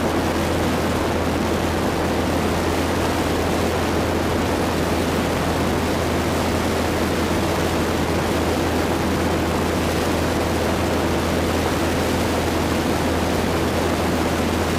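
Zenith STOL CH 750 Super Duty light airplane in flight: its piston engine and propeller drone steadily under rushing airflow noise, with no change in power.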